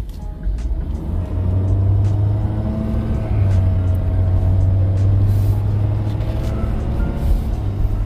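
Ford Super Duty pickup truck driving, its engine and road noise heard from inside the cab. The low drone grows louder about a second in as the truck picks up speed, then holds steady.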